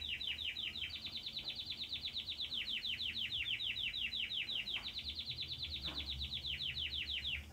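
Young domestic canary (Belgian canary) singing a long, rapid trill of evenly repeated falling notes, about eight a second, that stops abruptly near the end.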